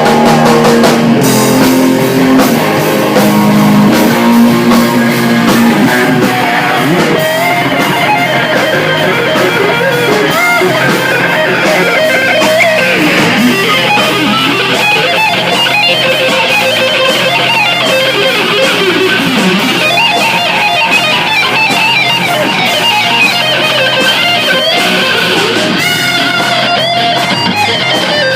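Instrumental rock band playing: electric guitar lines over bass and drums.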